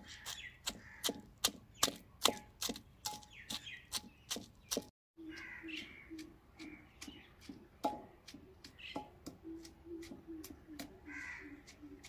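Wooden pestle pounding boiled green peas in a clay mortar: a steady run of knocks about three a second. After a cut about five seconds in, the strikes come fewer and fainter.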